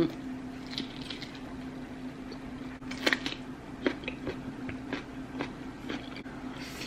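A person chewing and biting food close to the microphone, with short wet mouth sounds and crunches at irregular intervals, the sharpest a little after three seconds in. A steady low hum runs underneath.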